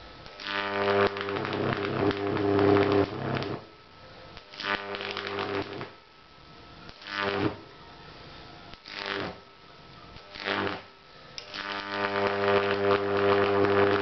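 High-voltage arc from an oil-cooled microwave oven transformer (MOT) with resonant capacitors, buzzing as it strikes. It fires in a long burst of about three seconds, then in four short bursts, and in the last few seconds holds as a steady buzzing arc.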